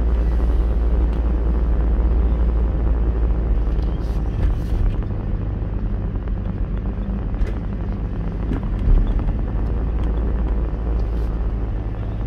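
A car's engine and road noise heard from inside the cabin while driving slowly, a steady low hum. The engine note changes about four and a half seconds in.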